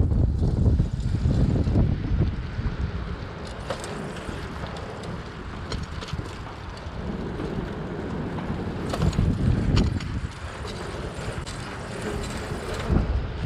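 Wind buffeting the microphone of a camera riding on a moving bicycle, over the rumble of the bicycle's tyres on pavement, with a few light, sharp clicks.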